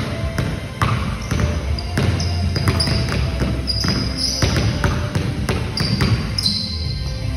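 A basketball being dribbled on a hard concrete gym floor: repeated sharp bounces, a couple a second, at an uneven pace.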